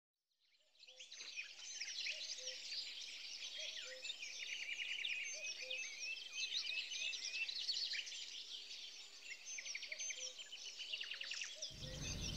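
A chorus of many small birds chirping and twittering, starting about a second in. Just before the end, a low rushing noise comes in under it.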